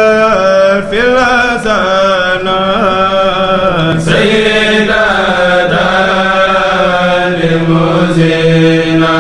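Male voices of a Mouride kourel chanting a khassaid, a devotional Sufi poem, in long held notes that slide between pitches, with a new phrase starting about four seconds in.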